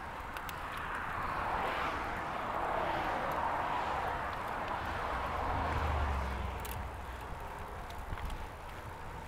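Road traffic heard from a moving bicycle: the tyre noise of a passing car on asphalt swells over several seconds and fades again, over a low rumble.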